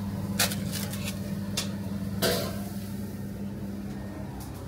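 A few short, sharp clicks and clinks, the loudest about two seconds in with a brief ring, over a steady low machine hum.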